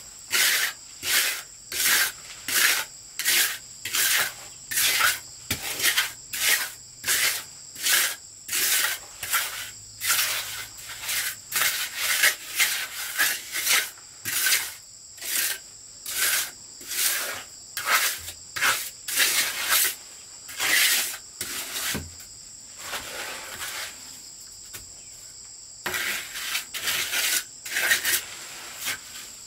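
Rhythmic rasping strokes of a hand tool being worked back and forth, about two strokes a second, stopping for a few seconds near the end before a few more strokes. Insects trill steadily in the background.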